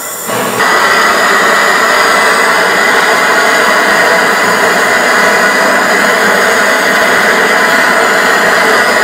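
Handheld butane gas torch burning with a loud, steady hiss of the flame, which comes up in two steps about half a second in.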